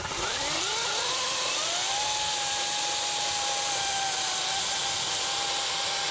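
EGO cordless battery chainsaw spinning up, its whine rising in pitch over about two seconds, then running at full speed with a steady high electric-motor whine and chain hiss.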